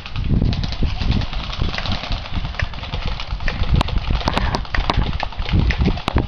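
Irregular footsteps and handling thumps from someone moving on foot with the camera. A few sharp snaps of airsoft gunfire come in a cluster around the middle and once more near the end.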